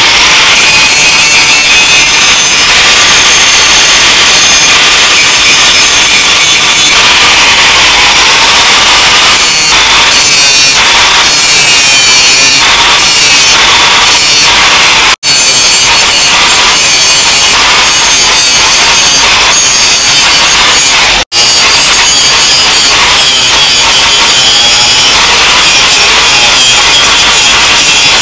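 Angle grinder with an abrasive disc grinding a steel blade forged from rebar: a steady high motor whine over a continuous grinding rasp. Twice the sound drops out for an instant.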